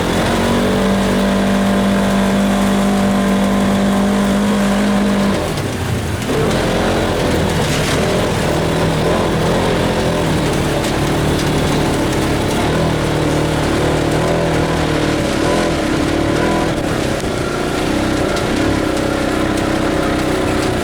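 Polaris RZR side-by-side's engine running while driving, holding a steady pitch, then easing off about five seconds in and running on at changing speed.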